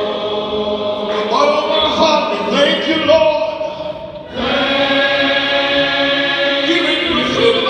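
Men's choir singing a gospel song. The voices drop away briefly about four seconds in, then come back in on a long held chord.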